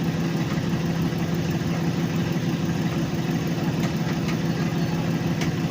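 2004 Chevrolet Express van engine idling steadily.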